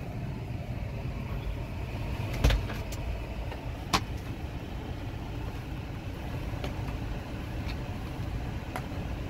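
A parked car's engine idling, a steady low rumble heard from inside the cabin. A thump comes about two and a half seconds in and a sharp click about four seconds in.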